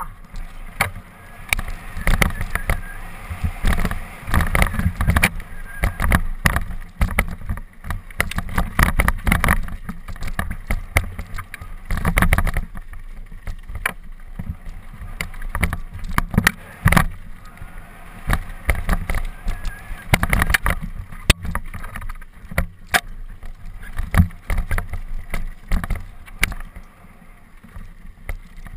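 Mountain bike descending a rocky dirt singletrack at speed: tyres rumbling over dirt and loose stones, with frequent rattles and knocks from the bike as it hits rocks.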